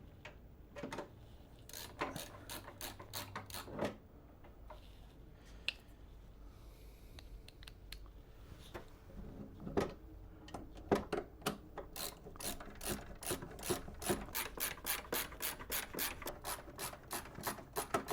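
Screwdriver driving mounting screws, clicking as it turns. Scattered clicks and knocks come first, then, about two-thirds of the way in, a quick, even run of clicks at about three to four a second.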